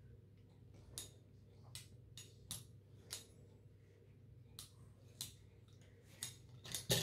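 Faint sharp clicks, about ten at irregular spacing, as a fluted pastry wheel is pressed and rolled through strips of dough against a table, cutting them into pieces.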